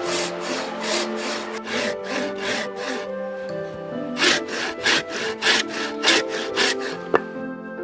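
Hand saw cutting wood in quick back-and-forth strokes, about two to three a second, louder in the second half, over background music.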